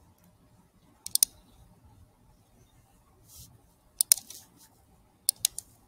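Computer mouse clicks, in three quick pairs: about a second in, at about four seconds, and near the end.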